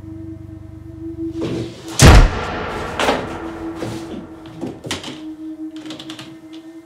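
A door slams hard about two seconds in, followed by a few smaller knocks and light clattering, over a steady low drone.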